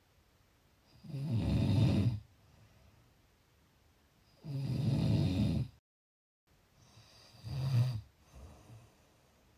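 A sleeping person snoring: three loud snores about three seconds apart, the third one shorter, with a brief dropout to dead silence after the second.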